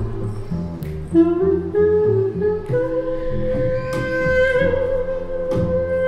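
Live improvised music: a double bass playing a line of low notes, joined about three seconds in by a long held higher tone.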